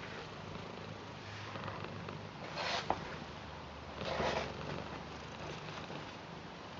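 British Shorthair cat purring steadily, with two brief rustles, about two and a half seconds in and again at four seconds.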